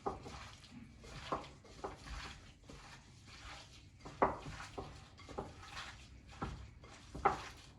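Chicken being mixed with its spice marinade in a bowl: irregular clicks and knocks of the utensil against the bowl, a few a second apart, with two louder knocks about four seconds in and near the end.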